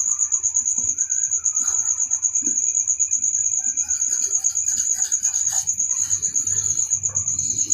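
A cricket trilling without a break in a high, finely pulsing tone, over faint scattered clicks and taps of small parts being handled.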